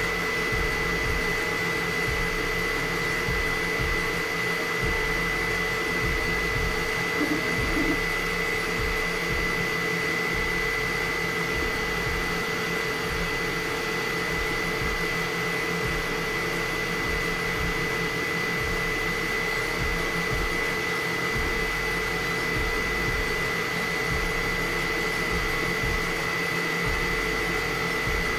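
Elegoo FDM 3D printer running mid-print: a steady whir from its cooling fans with a constant high whine over it.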